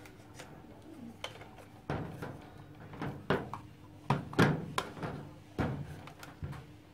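Irregular hollow plastic clicks and knocks from a toy shotgun and its plastic drum magazine being handled and set down on a table. The loudest cluster of knocks comes about four seconds in.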